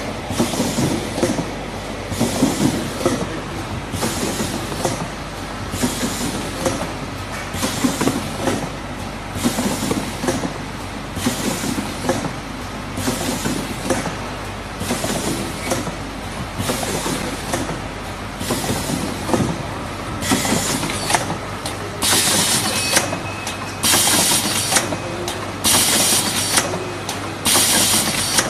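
CP-50A automatic turntable cartoning machine running: steady mechanical clatter as the rotary table indexes, with a short hiss of air from its pneumatic stations about once a second. In the last few seconds the hisses are louder and come about every two seconds.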